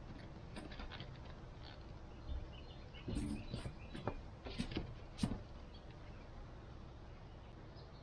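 Steady low outdoor background noise with a cluster of short, light knocks and clatters about three to five seconds in, from objects being handled.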